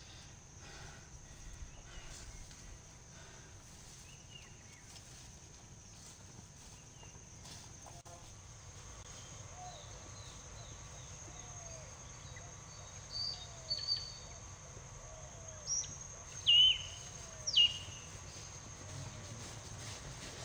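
Countryside ambience: a steady high insect trill with birds calling. In the second half there are a few loud, sharp bird chirps, and a low short call repeats about once a second.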